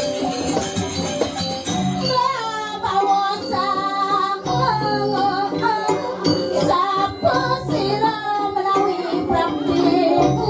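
Music: jingling percussion and accompaniment, with a voice coming in singing a wavering melody about two seconds in.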